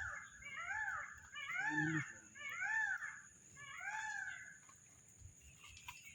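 An animal calling over and over, each call a short rise-and-fall in pitch, about one a second, stopping a little after four seconds in. A steady high-pitched whine of insects runs behind it.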